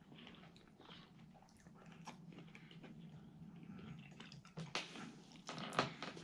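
A person chewing a mouthful of beef and broccoli, with small irregular wet clicks and crunches that grow louder near the end.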